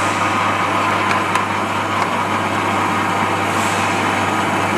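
Length grader of a laboratory rice quality test machine running steadily, its motor humming as it sorts broken grains from head rice, with a few faint ticks about a second in.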